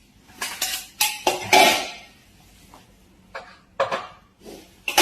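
A string of hard clattering knocks and clinks, a handful of separate hits, with the loudest cluster about a second and a half in.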